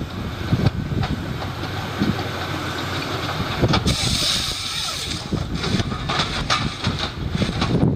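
Heavy wood-cutting machinery running, with a low rumble and scattered knocks and clatter, and a brief hiss about four seconds in.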